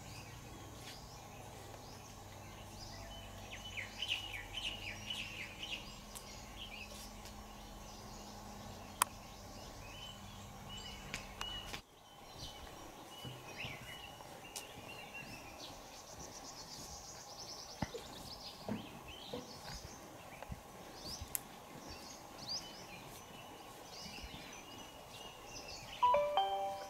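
Open-air ambience: a steady background hiss with birds chirping on and off and a few light ticks, and a louder short call near the end.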